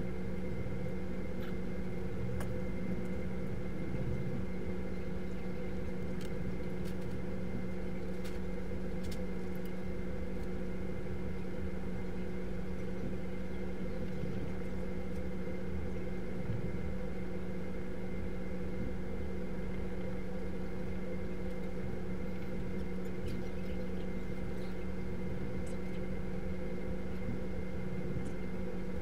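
Steady mechanical hum of room machinery, with several constant tones and a few faint clicks.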